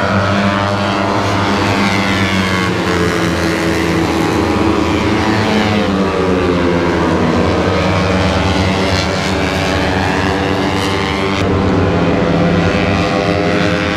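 Several underbone racing motorcycles with open exhausts screaming at high revs, engine notes rising and falling and overlapping as the bikes pass and shift.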